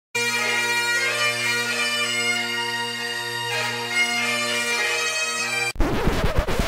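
Bagpipe music: a tune played over steady, unchanging drones. About a second before the end it cuts off abruptly into a short burst of rough, rumbling noise.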